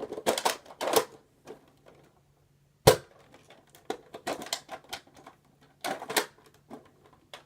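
Plastic clicks and rattles of a toy Nerf blaster being handled and primed, in short clusters, with one sharp, loud snap a little under three seconds in.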